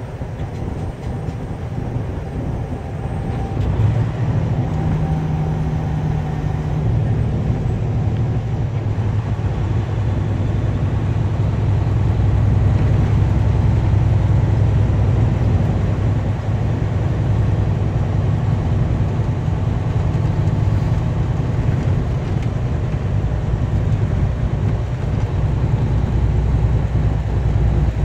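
Truck cab interior while driving: a steady low engine drone with road noise, growing a little louder about four seconds in.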